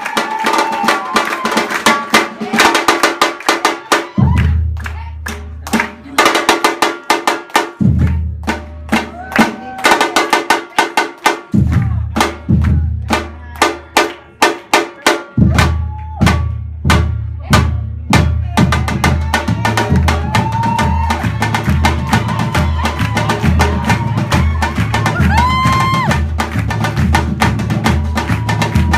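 Percussion-heavy dance music: rapid drum strikes, with a deep bass line that comes in about four seconds in, drops in and out, and settles into a steady pulsing beat about fifteen seconds in.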